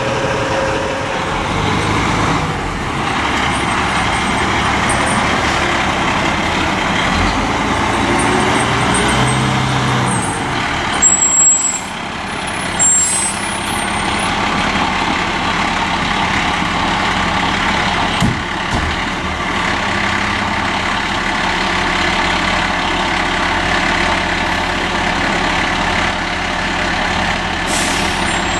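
Aerial ladder fire truck's diesel engine running as the truck pulls away and turns, the pitch rising as it works, with a couple of sudden air-brake hisses near the middle.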